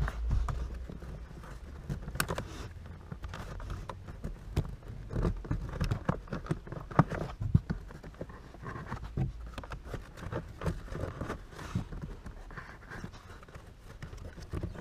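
Pleated cabin (pollen) filter being squashed and pushed into its plastic housing behind the glovebox: irregular scraping, rustling and short knocks of filter and hands against the plastic.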